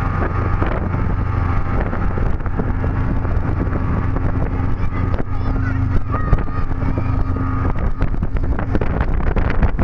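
Speedboat engine running at speed, a steady drone, with wind buffeting the microphone. Sharp knocks from the hull hitting the waves come more often near the end.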